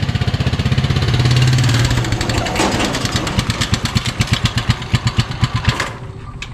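Motorcycle engine of a motorcycle-and-sidecar tricycle running at low revs with an even beat of firing pulses. It drops in level about six seconds in.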